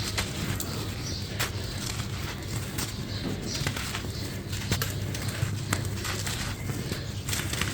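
Hole-shaped crunchy crumble blocks being crushed and broken apart, with irregular sharp crackles and snaps over a gritty crunching, and a steady low hum underneath.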